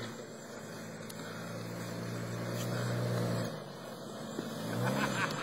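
1989 Jeep Cherokee's 4.0-litre inline-six engine running as the Jeep drives through mud. The engine note grows louder over the first three seconds or so, then drops off.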